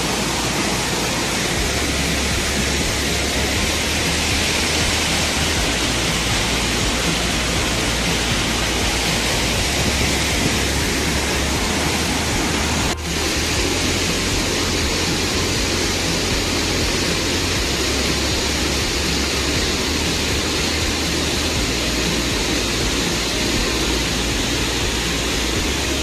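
Phurlijharan waterfall in heavy, muddy flow: a steady, loud rush of falling water, with one momentary dip about halfway through.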